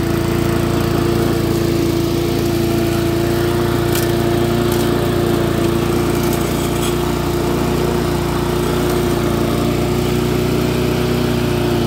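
Briggs & Stratton 450 series 148cc lawn mower engine running steadily at an even speed, started after the carburettor was primed.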